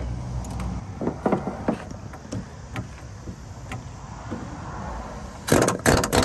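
Light metallic clicks and taps of tools working on a truck engine's filter housing. Near the end come several loud, rapid hammer blows on the filter housing cap.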